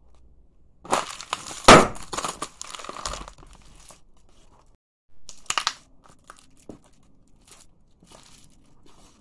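A sneaker crushing a sealed bag of potato chips on a hard floor: the plastic crinkles and crackles as the chips inside crunch, with the sharpest crunch under two seconds in. A second short burst of crinkling follows about halfway through, then only faint rustles.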